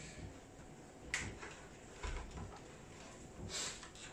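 Faint handling sounds from a motorcycle helmet and its padding being worked by hand: a sharp click about a second in, a low bump around two seconds, and a short rustle near the end.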